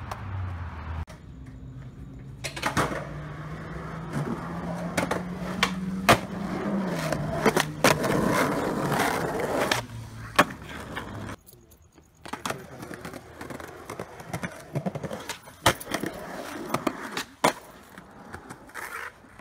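Skateboard wheels rolling on pavement, with a series of sharp clacks from tail pops and board landings. A low steady hum runs under the rolling through the first half.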